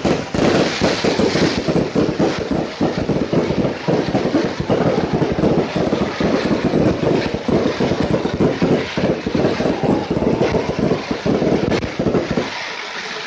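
Fireworks crackling in a dense, rapid barrage of pops that runs together into one continuous loud rattle, then stops suddenly near the end.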